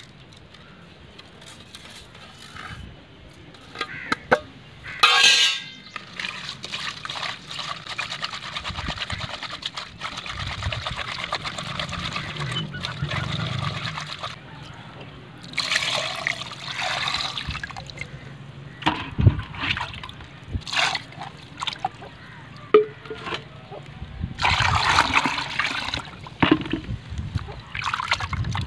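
Hands scrubbing a clay pot of small fish with salt: wet, gritty rubbing in uneven stretches with scattered knocks, and water sloshing near the end.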